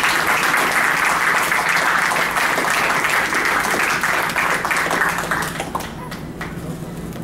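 A small group applauding, dense steady clapping that dies away about five and a half seconds in.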